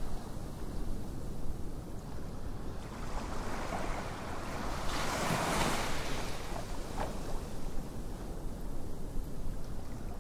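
Small waves lapping and washing up on a coral-sand beach, one wash swelling louder about five seconds in, with wind noise on the microphone.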